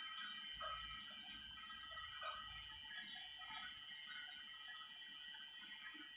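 Lathe running with a steady high-pitched whine and a low rumble underneath for the first few seconds.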